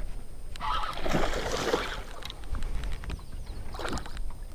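Water sloshing and splashing around a kayak in uneven bursts, with a few faint clicks.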